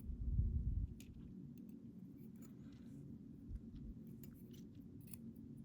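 Light scattered clicks and scrapes of small metal lock parts being handled as a pin-tumbler challenge lock is taken apart, with a dull low thump of handling in the first second.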